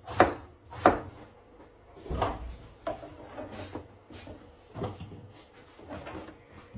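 Kitchen knife cutting eggplant on a cutting board: two sharp chops in the first second, then softer, irregular cuts every half second to a second.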